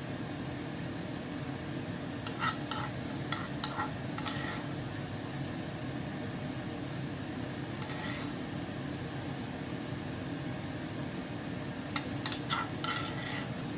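Kitchen utensils clinking lightly against dishware in a few short clusters, over a steady low background hum.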